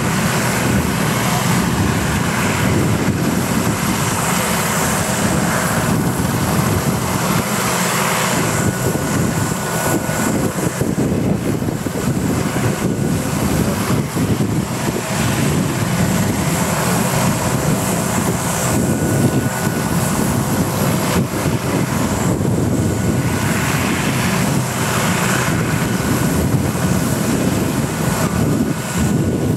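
RAF Westland Sea King search-and-rescue helicopter running on the ground before take-off, with its turbines whining and its rotors turning. The sound is a steady, loud rumble with a faint high tone.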